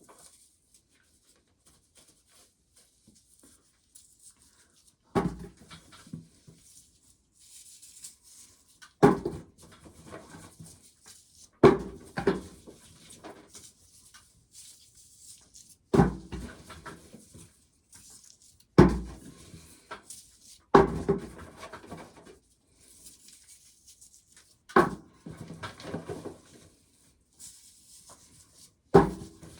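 Containers of shelled corn cobs being emptied and handled: about nine clattering thumps a few seconds apart, each trailing off in a short rattle.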